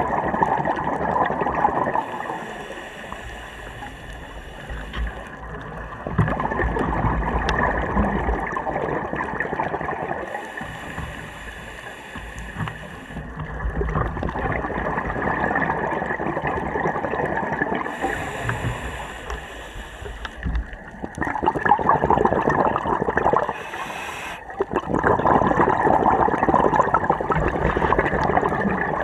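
Scuba regulator breathing heard underwater: five long bursts of exhaled bubbles, about every six seconds, with a quieter hissing inhale between them. A faint steady high tone runs underneath.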